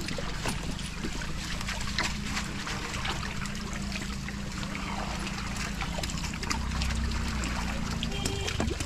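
Water splashing and trickling, with many small irregular splashes, from fish thrashing in a net full of catch as it is drawn up. A steady low hum runs underneath.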